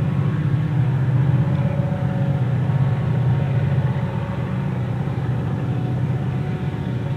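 Several diesel locomotives hauling a freight train, their engines working hard in a steady low rumble with a faint whine above it.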